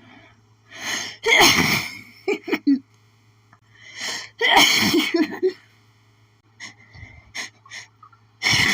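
A woman's harsh, hitchy sneezing fit: two loud sneezes about three seconds apart, each preceded by a catching in-breath, with short gasps between and another in-breath building near the end. Allergy sneezing, which she blames on the flower garden she planted.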